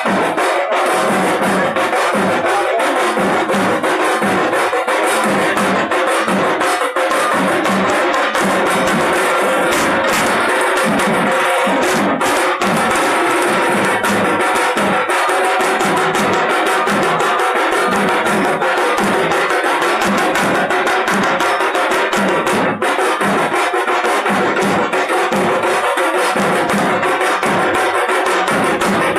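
Several dhak drums (large Bengali barrel drums) beaten with sticks together in a fast, steady rhythm. The sound is loud and continuous, with a driving beat that keeps on without a break.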